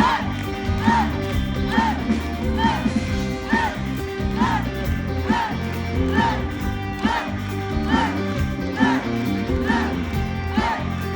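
Live rock band playing amplified, with a short guitar figure repeating about once a second over bass and drums.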